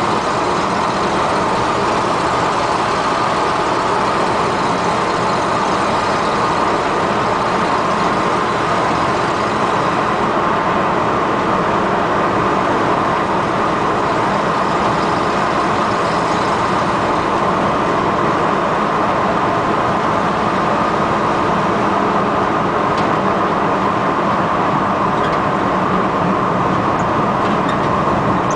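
Ford F100 pickup driving at a steady speed, its engine and road noise heard steadily from inside the cab.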